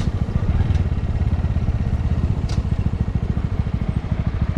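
Honda Grom's 125 cc single-cylinder engine running at a steady pace while the bike is ridden, a fast even beat of firing pulses. A short click about two and a half seconds in.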